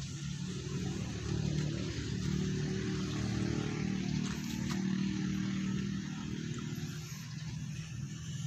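A low engine hum that grows louder over the first couple of seconds and eases off after about six seconds, over a steady hiss.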